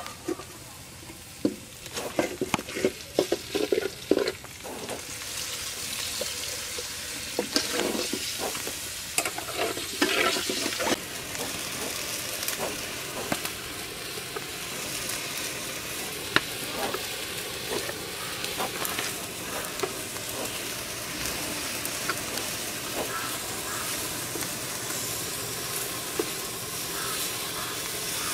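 Rice and onions frying in oil in a blackened pot, sizzling steadily, while a metal spatula stirs and scrapes against the pot. The scraping is busiest over the first ten seconds or so and then stops, leaving an even sizzle.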